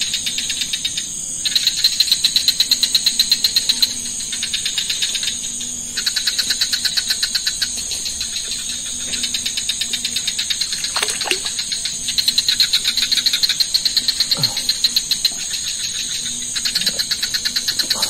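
Night insects calling: a rapid pulsing trill that swells and fades in phrases of a few seconds, over a steady high-pitched buzz.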